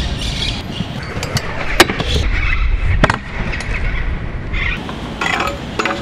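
Freestyle scooter wheels rolling over paving stones with a steady low rumble, with two sharp clacks about two and three seconds in.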